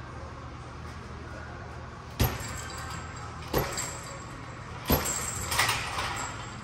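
Four sharp metallic clinks with a short ring after each, spread over a few seconds, from the still rings' hanging hardware as a gymnast grabs and hangs on the rings. Under them runs a steady low hum.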